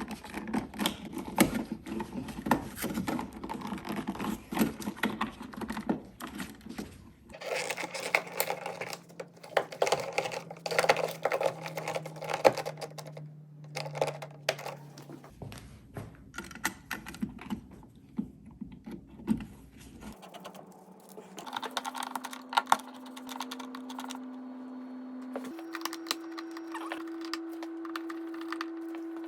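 Rapid light clicks and taps of hands handling a dimmer switch and its wires as they are pushed into a wall electrical box and fitted in place. A steady low hum sits underneath and shifts to a different pitch at several abrupt breaks.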